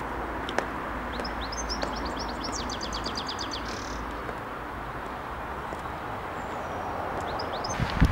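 A songbird singing one quick phrase of repeated high notes that speeds up into a trill, over steady outdoor background noise; a second phrase starts near the end.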